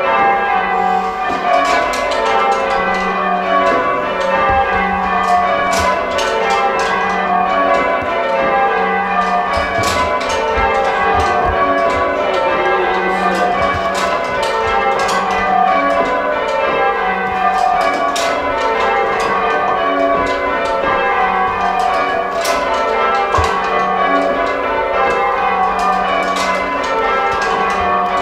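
Change ringing on a ring of church tower bells, heard from the ringing chamber below: an unbroken stream of overlapping bell strokes falling in repeated runs from the higher bells to the lower ones.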